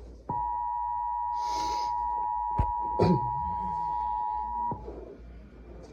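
Emergency Alert System two-tone attention signal (853 and 960 Hz sounded together), a steady beep held about four and a half seconds and then cut off sharply. It marks an incoming emergency alert. A couple of short clicks sound over it about halfway through.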